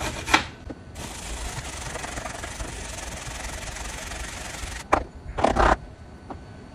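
Carrot grated on a metal box grater over a wooden cutting board: a last distinct stroke, then steady grating. About five seconds in there is a sharp click and two or three knocks of the grater on the board.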